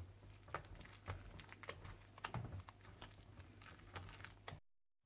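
Wire whisk beating a thick batter in a ceramic bowl: faint, irregular clicks and ticks of the metal wires against the bowl. The sound cuts off suddenly near the end.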